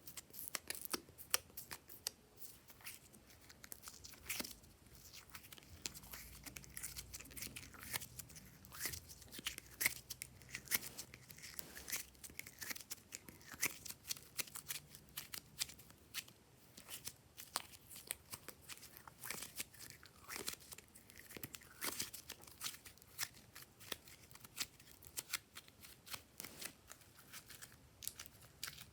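Glossy slime being kneaded and stretched by hand as galaxy slime is mixed into it, making a steady, irregular stream of sticky clicks, pops and crackles.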